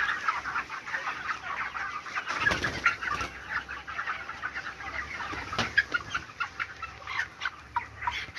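A flock of young broiler chicks peeping continuously, many short high chirps overlapping. A couple of sharp knocks sound, about two and a half seconds in and again past the middle.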